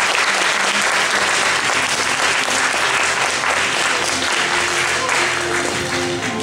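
Audience applauding, the clapping easing off near the end as recorded music fades in underneath.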